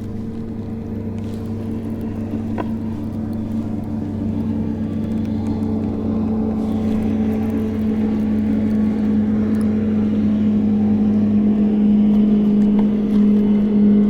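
Motorboat engine droning steadily at one pitch, growing gradually louder as the boat approaches.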